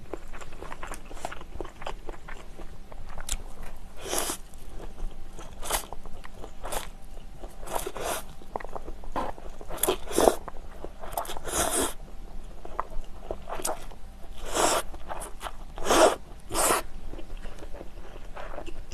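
A person slurping and chewing instant fried noodles (spicy Peyoung yakisoba): several loud slurps of about half a second each, with wet chewing and small mouth clicks in between.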